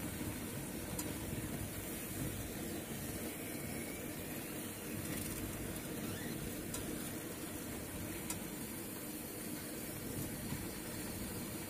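Gas stove burner running with a steady hiss and low rush under brinjals and green chillies roasting on a wire mesh over the open flame, with a few faint ticks.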